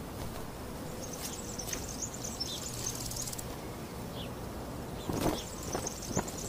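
Outdoor summer ambience: insects buzzing high-pitched in on-and-off bursts, with a few short falling bird chirps. Two soft thumps come near the end.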